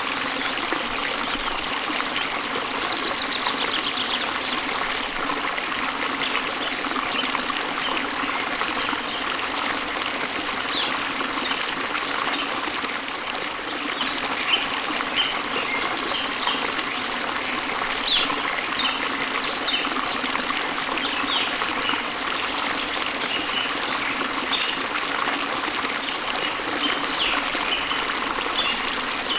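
Steady rush and splash of a waterfall, with short high bird chirps scattered over it, coming more often in the second half.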